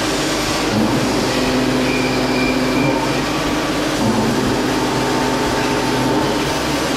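A CNC vertical machining centre rough face-milling pre-hardened 1.2311 tool steel with an eight-insert 66 mm face mill at 950 rpm. It makes a steady cutting noise with a low, even hum under it.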